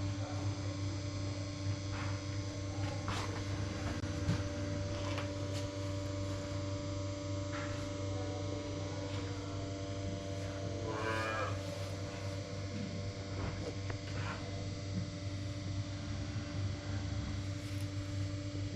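A steady low machinery hum runs throughout. A cow moos once about eleven seconds in, with a few faint knocks scattered through.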